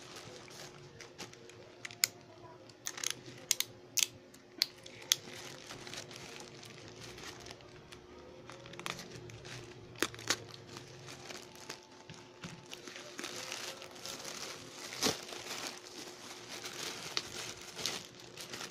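Plastic courier mailer bag crinkling and crackling as it is handled, with several sharp snaps in the first few seconds, then tearing as it is poked open and a denser rustle as a bubble-wrapped package is pulled out near the end.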